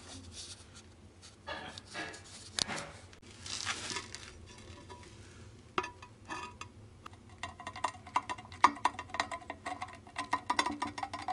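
Ceramic tiles being handled against a tiled step: light clinks, knocks and scrapes of glazed tile. In the last few seconds there is a quick run of clicks and squeaks.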